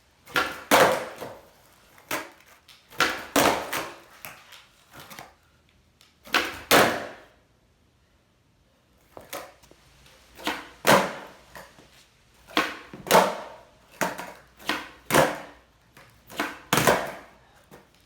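Skateboard tail popping off a hard floor and the board slapping back down, as sharp cracks in pairs or short clusters, about seven tries with a short pause about halfway. These are repeated Ollie North attempts.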